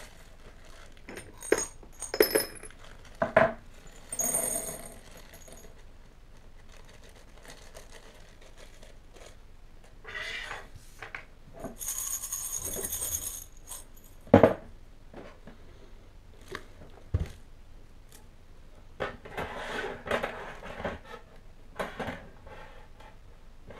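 Small metal Meccano parts clinking and rattling as they are handled and set down. Scattered sharp knocks and a few short jangling rattles.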